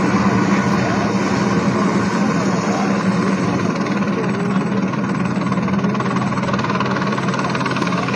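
Steady, unbroken engine drone with a constant low hum.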